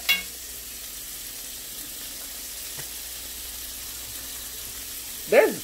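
Steady sizzling and bubbling from the stovetop, where a coconut cream tomato sauce is boiling down to thicken in a cast iron skillet beside a pan of roasting asparagus. A spoon clicks against the skillet at the very start, and a brief voice sound comes near the end.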